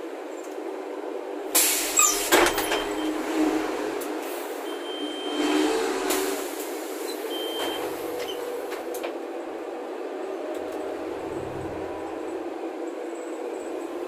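Cabin noise of a Bonluck JXK6120L natural-gas city bus on the move, a steady running drone. A few sharp rattles and knocks come about one and a half to two and a half seconds in, and a short rush of noise about six seconds in.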